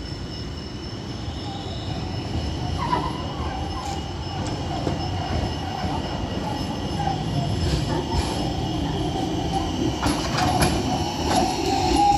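Rotterdam RET low-floor tram (Alstom Citadis) rounding a curve and passing close, its wheels squealing on the curved rails with a wavering tone from about three seconds in. The rolling rumble grows louder as it nears, with a few sharp clicks near the end.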